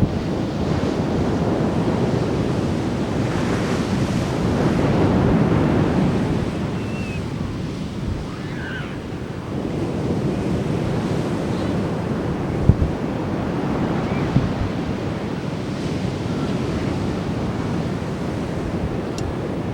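Ocean surf breaking and washing up a beach in a continuous rush that swells loudest a few seconds in, with wind buffeting the microphone in low thumps.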